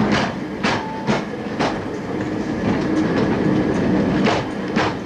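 Cable-hauled Great Orme Tramway tramcar climbing, heard from on board: a steady running rumble broken by half a dozen irregular sharp clicks and knocks from the wheels and running gear on the track.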